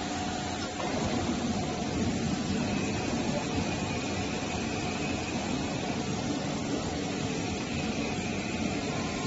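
Squeeze riveting machine's power unit running with a steady hum and hiss while idling between strokes.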